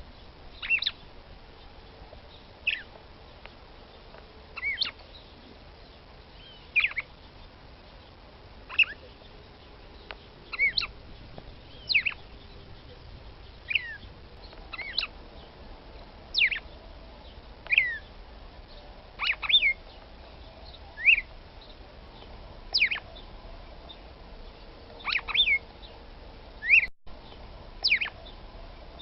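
Female red-cowled cardinal (Paroaria dominicana) calling to stir a male. She gives short, sharp call notes that drop quickly in pitch, about one every one and a half to two seconds, now and then two in quick succession.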